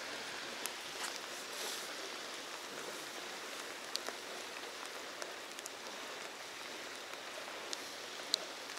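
Steady outdoor hiss with a few faint, scattered ticks.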